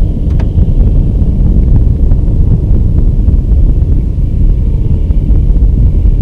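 Wind buffeting the camera's microphone, making a loud, uneven low rumble.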